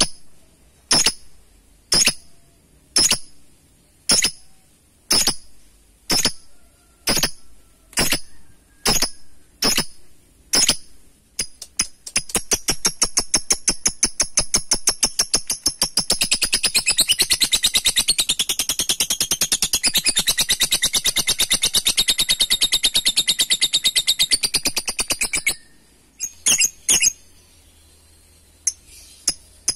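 Blue masked lovebird giving sharp high chirps about once a second. After about a dozen of them it speeds up into a rapid chatter that runs into a long unbroken trill, the 'ngekek panjang' prized in a worked-up lovebird, which stops suddenly and is followed by a few more chirps.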